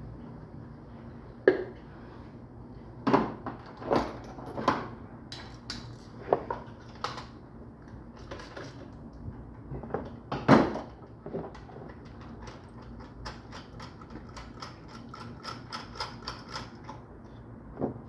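Hand tools knocking and clinking against engine parts in separate strikes. About two thirds in comes a run of quick, even clicks, around five a second, that lasts a few seconds.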